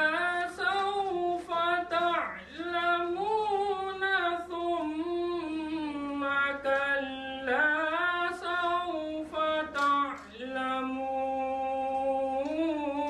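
A man reciting verses of the Quran in the melodic chanted style (tilawat): long held notes with ornamented pitch turns, sung in phrases separated by short pauses for breath.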